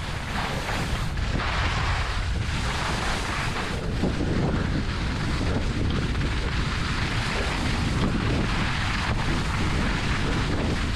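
Wind buffeting the microphone of a skier's camera, a steady rumble, over the continuous hiss and scrape of skis running on packed snow.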